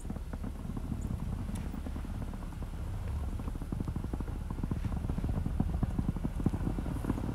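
Truck rolling slowly down a snow- and ice-covered driveway: a low engine rumble with a dense crackle of tyres crunching over the snow and ice, growing gradually louder.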